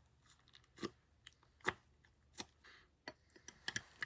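Faint, scattered clicks and taps of slime and a container being handled, bunched more closely near the end.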